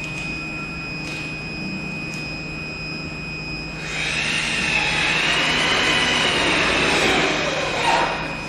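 Acctek AKM6090C CNC router's spindle running with a steady high whine. About four seconds in the sound gets louder and noisier, with a tone that rises and then falls away, and it settles back to the steady whine near the end.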